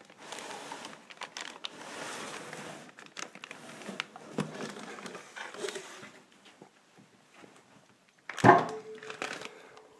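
Plastic bag and wrapping crinkling and rustling as an aluminium cylinder head is worked out of its shipping box, then a loud thump about eight and a half seconds in as the head is set down.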